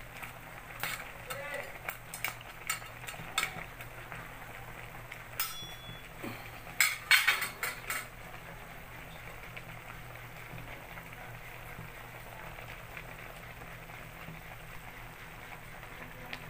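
A metal spatula stirring and clinking against a pan of crabs and vegetables cooking in coconut milk, with a string of sharp clicks, the loudest cluster about seven seconds in. After about eight seconds the clinking stops and only the simmering pot and a steady low hum remain.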